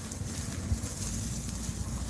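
Wind buffeting the microphone as a steady low rumble with hiss, with one brief knock about three-quarters of a second in.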